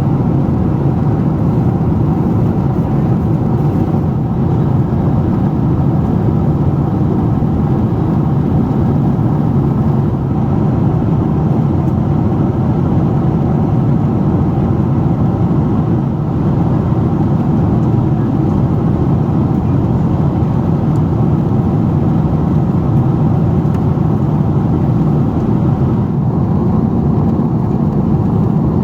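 Steady engine and airflow noise heard inside the cabin of a Boeing 767-400ER airliner in flight, a low, even rumble with no change throughout.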